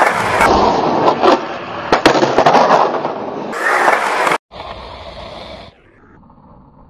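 Skateboard wheels rolling loudly over the concrete of an empty pool bowl, with several sharp clacks of the board striking the surface. The sound cuts off abruptly about four and a half seconds in, leaving a much quieter background.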